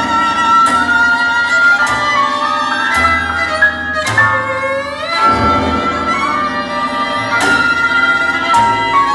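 Recorded contemporary composition played back: held high string-like notes that change pitch every second or so, with one swooping slide down and back up about four seconds in, over a low held bass.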